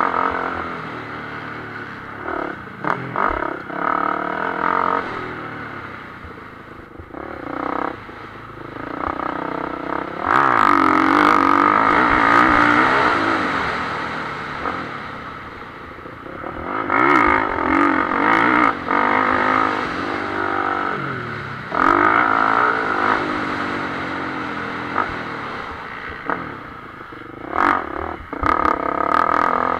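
A motocross bike's engine, heard from a camera mounted on the bike, accelerating hard and backing off again and again, its pitch climbing on each of several loud surges, with chassis rattle and clatter from the rough track.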